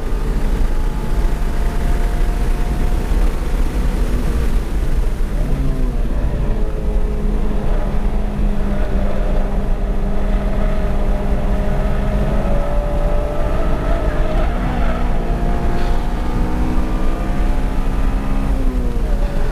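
Honda Civic Si's K20Z3 four-cylinder engine pulling hard at track speed, heard from inside the cabin over heavy low road and wind rumble. The engine note climbs slowly, dips briefly about five to six seconds in, and drops away near the end.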